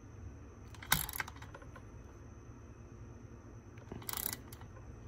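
Steel bar wrench clicking and scraping on the nut as a chainsaw bar stud is tightened, drawing the stud into the crankcase against a spacer. Two short bursts of metallic clicks, about a second in and about four seconds in.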